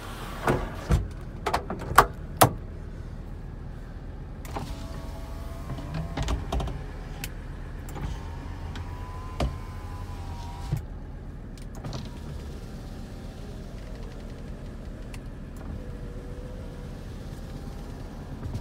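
Electric window motors in a Mercedes-Benz 300TD wagon whining as the windows run, from about four seconds in to about eleven, with a fainter run later. Several sharp clicks and knocks come in the first couple of seconds, and a low steady hum lies underneath.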